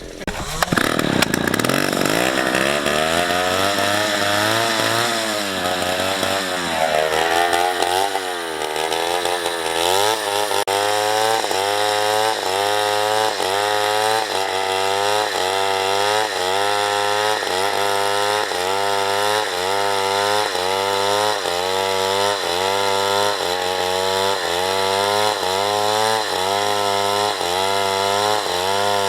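Two-stroke chainsaw revving up sharply just after the start, then cutting wood under load. Its engine pitch rises and falls in a steady rhythm about once a second as the bar works through the cut.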